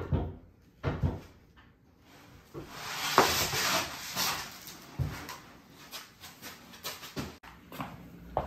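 Knocks and bumps from a heavy wooden pedestal table being handled and turned over onto its legs, with a brief scraping rush about three seconds in.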